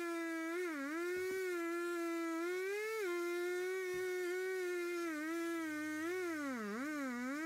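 Muffler-modded Stihl two-stroke chainsaw cutting through a log, running at a high steady pitch that sags and recovers several times as the chain bites into the wood.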